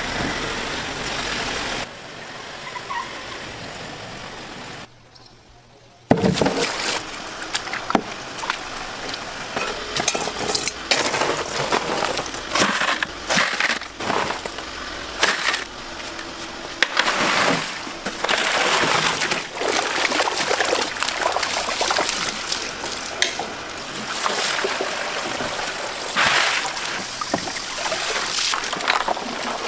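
Water splashing and pouring, with many sharp clinks and knocks of ice and tubs; near the end a net of live fish is lifted dripping out of a tank, water streaming from it.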